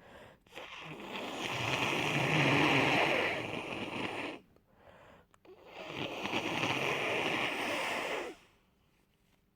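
Two long nose blows into a tissue through a congested, snotty nose from a cold, the second a little shorter than the first.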